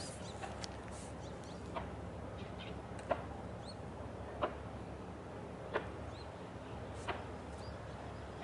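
Outdoor ambience under a steady low rumble: a sharp tick repeats about every second and a third, with faint short chirps of small birds between the ticks.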